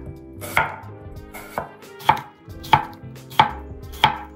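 Kitchen knife slicing an apple thinly on a bamboo cutting board: six crisp knocks of the blade through the apple onto the wood, roughly one every half second to second.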